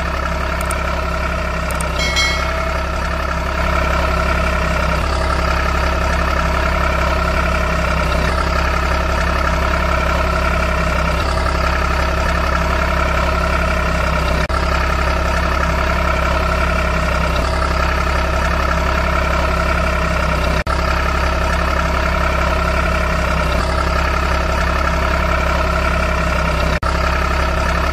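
Truck engine idling steadily, with a brief high chime about two seconds in.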